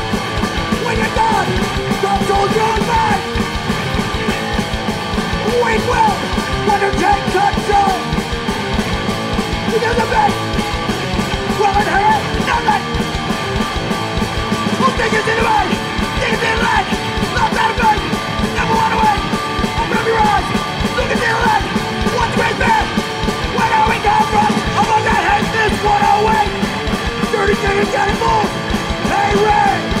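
Hardcore punk band playing live: loud, continuous guitars and drums with shouted vocals.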